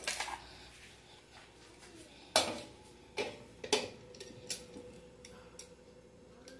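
Metal clicks and knocks of a knife against a pressure cooker's lid as the lid is fitted and closed. A sharp knock comes about two and a half seconds in, followed by several lighter taps.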